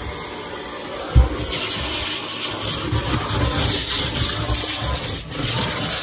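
Numatic Henry cylinder vacuum cleaner running, its hose nozzle sucking at the carpet of a car boot with a rushing hiss. A thump comes about a second in, after which the suction hiss grows louder and brighter.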